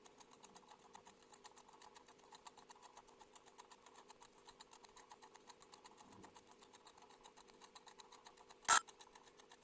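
Wind-up kitchen timer's clockwork ticking, sped up into a rapid, even run of about eight ticks a second. Near the end comes a single loud, sharp strike as the countdown runs out and the timer goes off.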